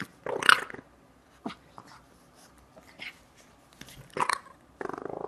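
A French bulldog puppy barking in short bursts, the loudest about half a second in, then giving a brief rumbling growl near the end.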